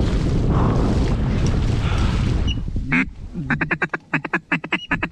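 Wind buffeting the microphone. About three seconds in it gives way to a rapid run of duck quacks, several a second.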